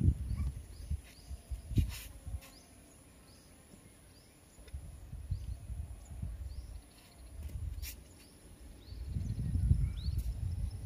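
Outdoor ambience of small birds chirping in short, scattered calls over irregular low thumps and rumbling, with a thin steady high tone throughout. The low rumbling swells near the end.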